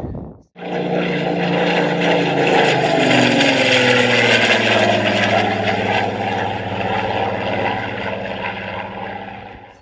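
Propeller aircraft engine running with a steady drone. It starts abruptly about half a second in, one set of its tones falls in pitch a few seconds in, and it fades out near the end.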